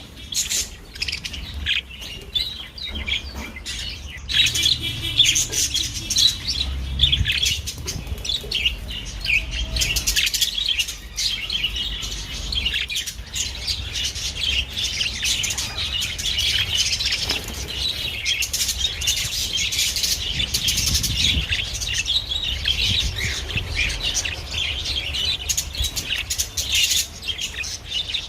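Budgerigars chattering and warbling without a break, a dense run of fast chirps and trills.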